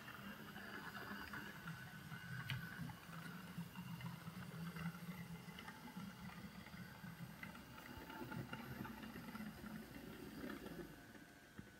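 OO gauge model tank locomotive and coaches running on the layout's track: a faint, steady low motor hum with light clicks from the wheels. It dies away about eleven seconds in.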